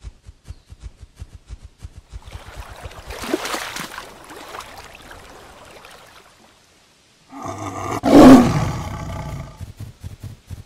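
Hippopotamus calls: a long, noisy call from about two seconds in, then a louder roaring call with a clear pitch about seven and a half seconds in, the loudest part. A steady low pulsing, about five a second, sits under the start and the end.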